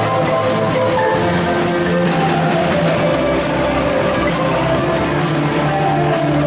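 Marimba ensemble playing a pop song arrangement: many wooden marimbas sounding melody and chords in step, over a drum kit keeping a steady beat with cymbal strikes.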